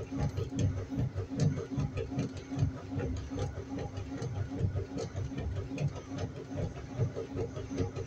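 Washing machine running: a quick, irregular run of low thuds, about three to four a second, over a steady hum.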